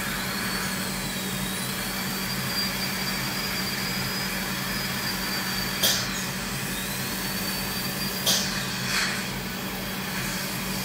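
High-speed dental handpiece whining at a high, slightly wavering pitch over a steady hum and hiss. It runs twice, and each run ends with a short burst of hiss, about halfway and three-quarters through.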